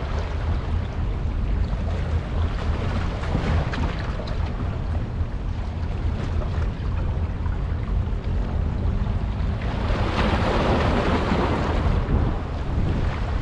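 Wind blowing on the microphone over a steady low rumble, with a louder rush of wind and water noise about ten seconds in.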